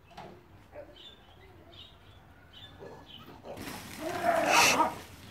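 Dogs barking and growling as they lunge at a backyard fence toward a neighbour's dog. The outburst starts about two-thirds in, gets loud and then eases off, after a few faint chirps.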